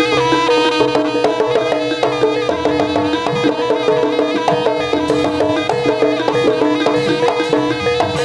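Live Javanese jaranan (kuda lumping) ensemble music: quick melodic notes over drumming, with one tone held steadily underneath.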